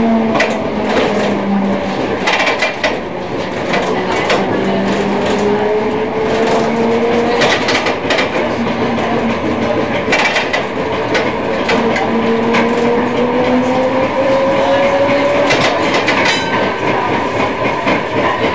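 Munich M-type tram running on street track, heard from inside the car: its motor whine falls in pitch as it slows over the first few seconds, then rises twice as it picks up speed again. Wheels clatter and click on the rails throughout.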